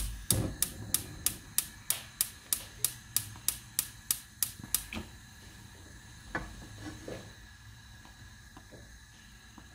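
A thump, then a run of about fifteen sharp, evenly spaced taps, about three a second, lasting some five seconds, followed by a few softer, scattered knocks.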